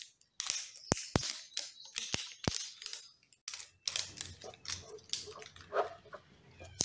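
Plastic crackling and crinkling as the red plastic tamper seal is torn off around the lid of a honey jar, a run of sharp crackles followed by denser rustling.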